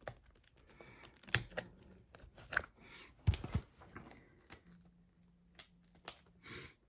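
Faint, scattered clicks, taps and rustles of a cardboard trading-card box being handled and worked open by hand, with a few sharper knocks, the loudest a pair about three and a half seconds in.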